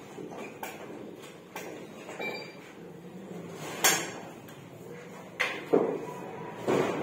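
Scattered clicks and metal knocks from steel ceiling furring channels being handled and fastened overhead, with a few sharp, loud snaps about four seconds in and again near six seconds.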